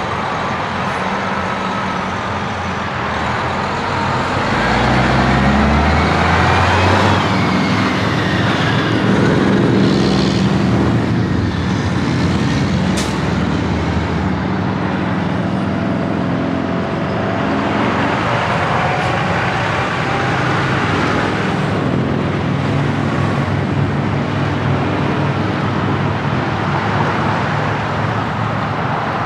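Diesel semi-trucks with trailers driving past close by: engines running with tyre and road noise, the engine note rising and falling. Loudest as a trailer rolls past a few seconds in, with one short sharp click about halfway through.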